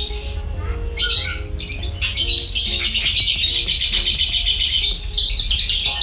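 Javan bushlark (branjangan) singing a fast, high-pitched twittering song. It starts with a few separate notes, then runs almost without a break from about a second in.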